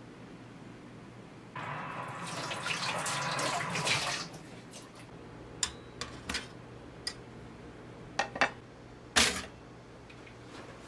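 A few seconds of rushing noise, then scattered light clicks of metal tongs against a Philips two-slot pop-up toaster as a slice of bread goes in, with one louder clack near the end.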